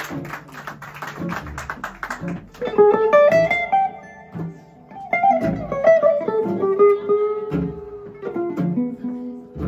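Jazz guitar on an f-hole archtop: chords strummed in a steady rhythm, and from a couple of seconds in a quick single-note melodic line played over them.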